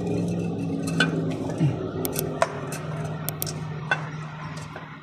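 Light metallic clinks and taps as an aluminium timing cover is handled and fitted against the engine, a handful of separate knocks, over a steady low hum.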